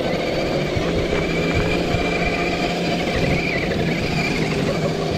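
Electric motor and gearbox of an RC scale crawler running steadily under load, a low hum with a higher whine over rough noise.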